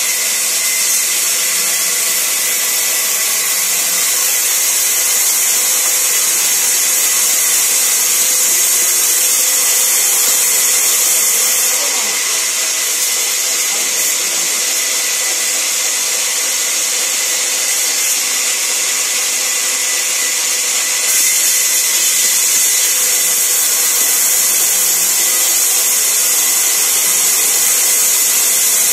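Sawmill band saw running and ripping a long, thin wooden plank: a loud, steady, hissing cut with a thin steady whine. The sound shifts slightly in level a couple of times as the plank is fed through.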